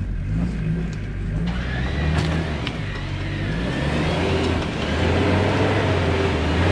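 Off-road 4x4 pickup truck's engine revving as it climbs a muddy slope. The engine note rises and falls and gets louder over the last couple of seconds, with a couple of sharp knocks a little after two seconds in.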